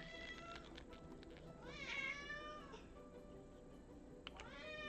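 A domestic cat meowing three times, faintly: each meow rises and then falls in pitch, the first right at the start, the second about two seconds in, the third near the end.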